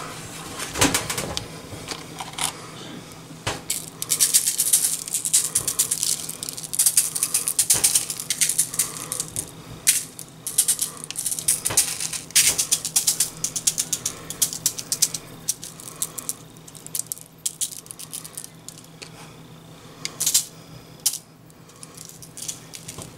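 Salt and pepper blend being sprinkled from its container over a sheet pan of sliced red potatoes: fast runs of dry rattling clicks, densest in the first half, then in shorter intermittent shakes.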